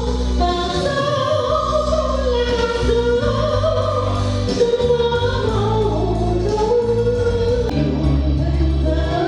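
Music with singing over held bass notes.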